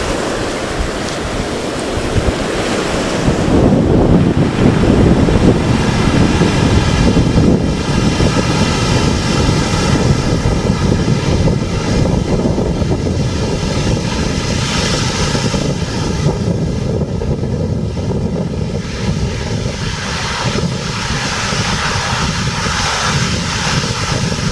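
Storm waves breaking and washing up the shore, a continuous loud surf with wind buffeting the microphone; the heaviest surge comes about four to six seconds in.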